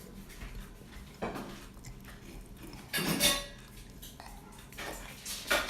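Faint kitchen clatter of utensils against dishes, in a few short bursts: about a second in, around three seconds in, and near the end.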